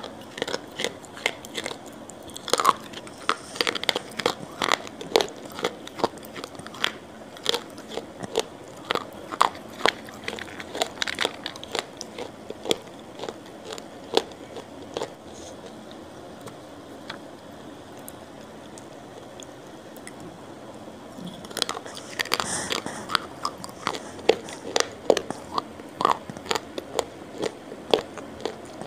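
Close-miked eating: crisp bites and crunchy chewing of a dry, crunchy snack. Dense crunching at first, sparser chewing through the middle, then another run of crunching near the end.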